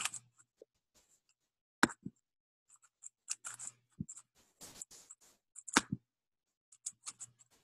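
A few sharp clicks of a computer being operated, with brief soft rustles between them and near silence in the gaps.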